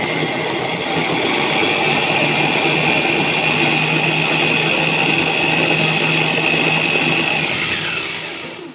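Electric mini food chopper running at full speed, its blades chopping chillies and tomato into a coarse paste, with a steady high motor whine. Near the end the motor is switched off and the whine falls as it winds down.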